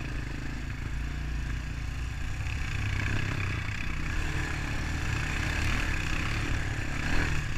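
Honda ATV's single-cylinder four-stroke engine running steadily while riding a desert trail, with a rushing noise that swells about three seconds in.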